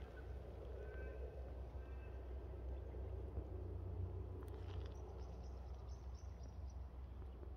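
Quiet rural outdoor ambience: a steady low rumble, with a few faint bird chirps about a second in and again past the middle.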